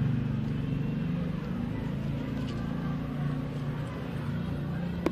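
A motor running steadily with a low hum, and a single sharp click near the end.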